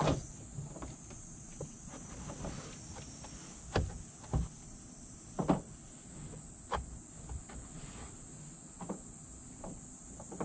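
A handful of soft, separate knocks and creaks as hands pull the rubber door weatherstrip away from the roof rail and press up on the fabric headliner of a Toyota Aqua's rear roof. A faint, steady high hiss runs underneath.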